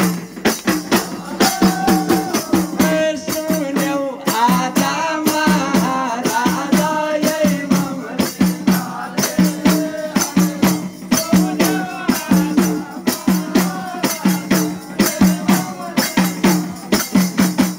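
Khaijadi bhajan: a group of khaijadi, Nepali frame drums with jingles, beaten together in a fast even rhythm of about three to four strokes a second, with voices singing the devotional song over them.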